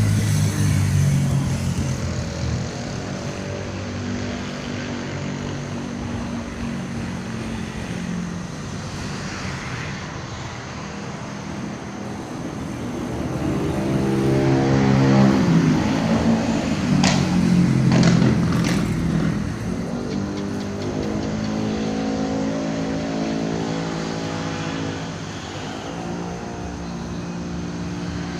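Motor vehicle engines running and passing by. A louder pass comes near the middle, its pitch rising and then falling, with a few sharp clicks at its loudest point.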